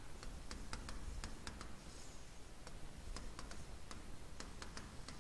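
Light, irregular clicks and taps of a stylus tip on a tablet screen during handwriting, about three a second with a brief pause around two seconds in, over a faint low hum.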